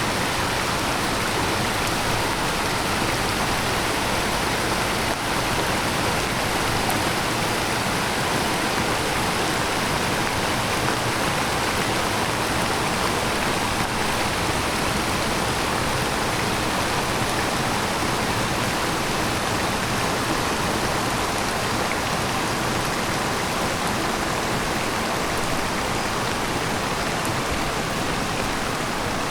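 Heavy rain pouring down together with a rain-swollen stream rushing, a steady, even rush of water with no breaks.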